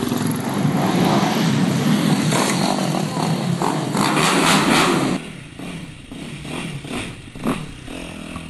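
Motorcycle engine running loudly, then dropping away sharply about five seconds in, leaving a fainter engine sound that rises and falls.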